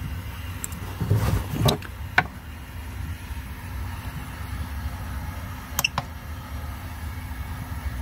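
Steady low hum in the background, with some handling noise about one to two seconds in and two quick ticks near six seconds as buttons are pressed on a handheld battery tester.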